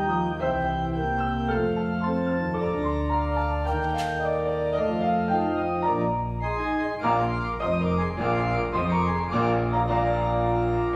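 Organ playing slow sustained chords, with shorter moving notes from about six seconds in.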